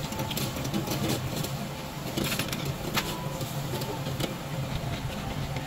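Beef intestines sizzling on a charcoal wire-mesh grill under the steady low hum of the overhead exhaust hood, with several sharp snips and clicks of kitchen scissors and metal tongs cutting the meat against the grill.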